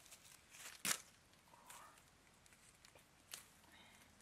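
Small wild oranges dropping into a wicker basket: a sharp thump about a second in and a softer knock a little past three seconds.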